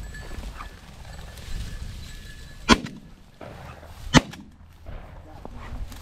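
Two shotgun shots about a second and a half apart, each a sharp crack with a short echo, fired at a quail flushed in front of a pointing bird dog.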